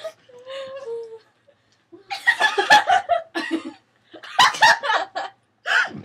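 Girls laughing and giggling in several bursts.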